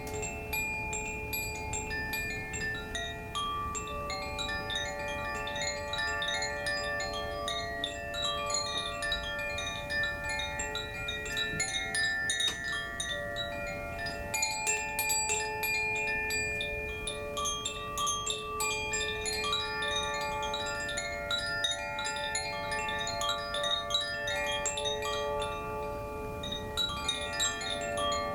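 Koshi chimes ringing continuously as they are played: the clapper strikes the tuned metal rods inside the bamboo tube in an irregular run, and many tones overlap and ring on, each strike starting with a faint click.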